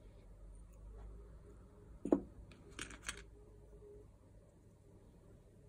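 Small plastic kit parts clicking against their plastic storage case as they are picked out by hand: one sharp clack about two seconds in, then two lighter clicks close together.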